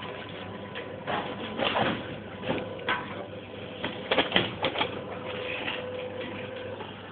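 Rubbing and knocking on a handheld phone microphone as it is jostled, with a cluster of sharp knocks about four seconds in and a faint steady hum under it.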